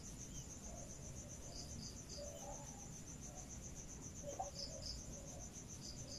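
A cricket chirping steadily in the background, a fast even train of high pulses, with faint rubbing of an eraser wiping marker off a whiteboard.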